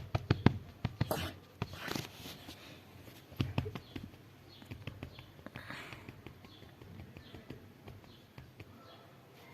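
Pet rabbit honking: soft, low, short honks, the happy, excited noise a rabbit makes as it moves about. Its paws tap and patter on the floor in quick clicks, busiest in the first two seconds.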